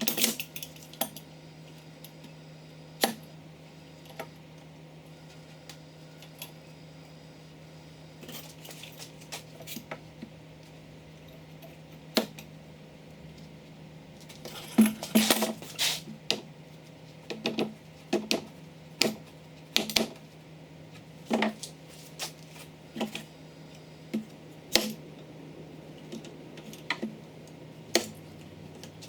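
Bar clamps and wooden boards being handled and clamped: irregular sharp clicks, knocks and light metallic clatter, scattered at first and coming thick and fast from about halfway through, over a steady low hum.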